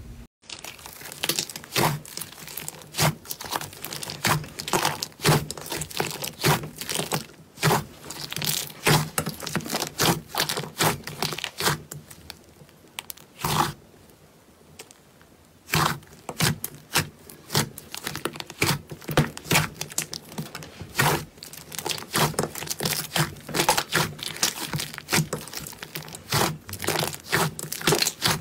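Hands pressing, poking and pulling apart a large mass of fluffy slime in a glass bowl. It makes dense, irregular sticky crackles and pops that go quieter for a few seconds about halfway through.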